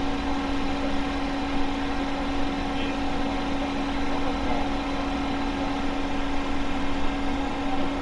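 Steady mechanical hum: one strong unwavering tone with fainter tones above it and a low rumble underneath, running without change.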